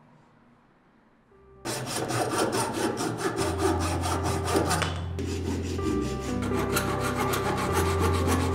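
A small hand frame saw cutting through a thin dry branch with quick, even strokes, starting about a second and a half in and pausing briefly near the middle.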